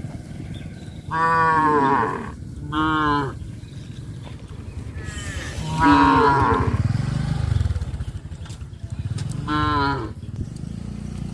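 Cattle mooing: four separate calls, the first two close together, one about the middle and one near the end.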